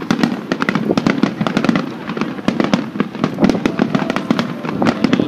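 Aerial fireworks display with several shells bursting at once: a dense, continuous run of sharp cracks and pops, many to the second, over a low rumble.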